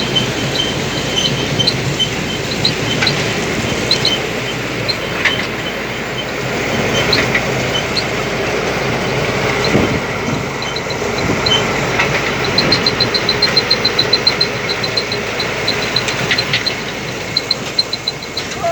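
Harvesting machinery running, with a loud, steady mechanical noise and a repeated high-pitched squeak from a moving part. The squeaks come irregularly at first, then in a quick run of several a second around two-thirds of the way through.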